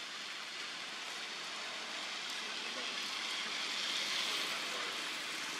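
Steady outdoor background hiss, swelling a little about two thirds of the way through.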